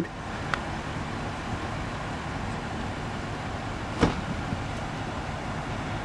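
Steady highway traffic noise from cars and trucks moving past on a two-lane highway. A single sharp knock stands out about four seconds in.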